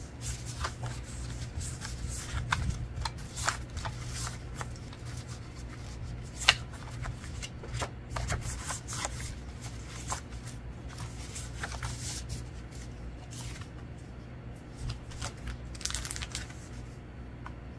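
Paper oracle cards being handled and flipped through: irregular light clicks and slides of cardstock, with one sharper snap about six and a half seconds in, over a low steady hum.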